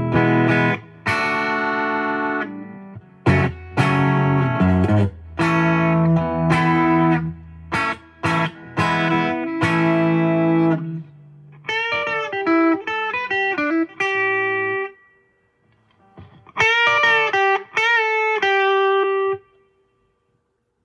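Clean electric guitar played through the JHS Ross compressor pedal, switched on, into a Boss Katana amp. It strums chords for about eleven seconds, then plays single picked notes that ring out, and stops a little before the end.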